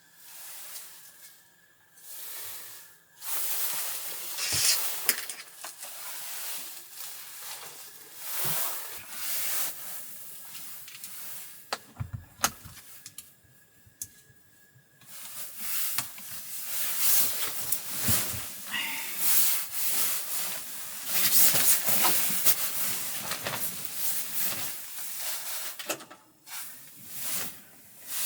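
Blizzard wind gusting in surges, swelling and dying away every few seconds, with a faint whistle in the lulls and a few sharp knocks about twelve seconds in.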